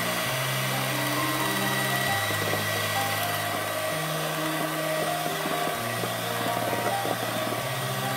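Electric hand mixer running steadily, its beaters whipping a thick white mixture in a steel pot, with a constant high whine. Background music with slow held notes plays over it.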